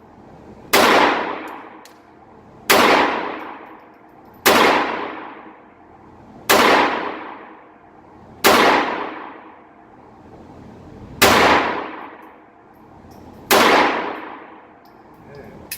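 Phoenix Arms .22 LR pistol fired seven times, a shot about every two seconds, each crack followed by a long echo that fades away.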